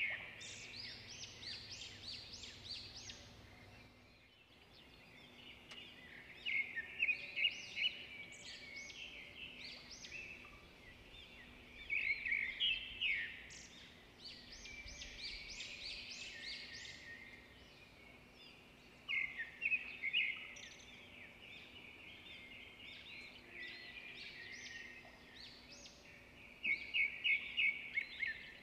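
A songbird singing: bursts of rapid high chirps and trills every six seconds or so, with softer chirping in between, over a faint steady hum.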